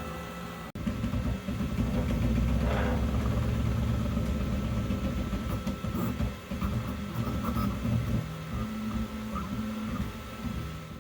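Ultimaker S3 3D printer running, its stepper motors buzzing in low pitches that keep stepping up and down as the print head moves. The sound breaks off briefly about a second in.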